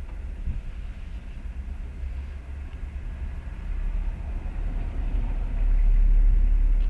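Low, steady vehicle rumble heard from inside a car's cabin, swelling louder about five and a half seconds in as another car passes close alongside.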